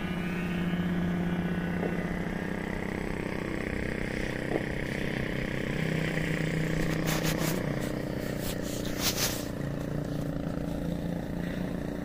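Electric motor and large propeller of a big RC model plane droning steadily in flight, the pitch shifting a few times. A few brief rustles sound about seven and nine seconds in.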